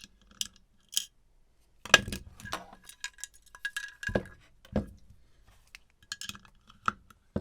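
Small metal hard-drive parts clinking and knocking as the drive is taken apart by hand: a string of sharp clinks and taps, the loudest about two seconds in, with a short ringing tone a little past the middle.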